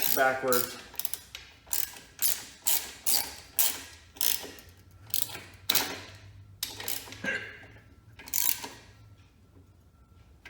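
Ratchet wrench clicking in repeated back-and-forth strokes, about two a second, as a bolt on a motorcycle's rear brake is turned in. The clicking stops about nine seconds in.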